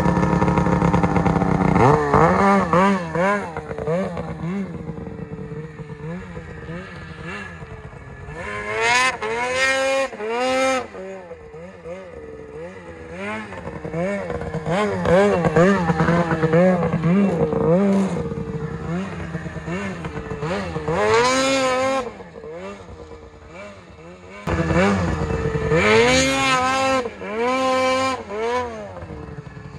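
Ski-Doo 600RS snowmobile's two-stroke twin idling, then revved hard in repeated surges, its pitch climbing and dropping as the sled is launched into wheelies.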